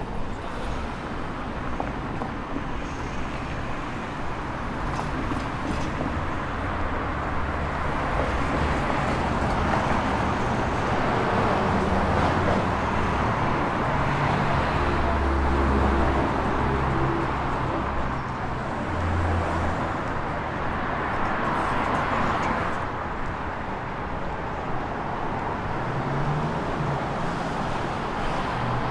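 City street traffic: cars passing with a steady wash of engine and tyre noise, louder around the middle.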